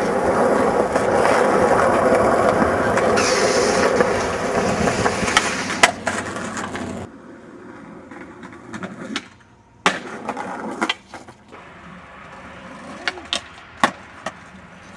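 Skateboard wheels rolling on smooth concrete, a loud steady rolling noise, with two sharp clacks of the board about five and six seconds in. About halfway it cuts off abruptly to a much quieter stretch with scattered single clacks of a skateboard striking the ground.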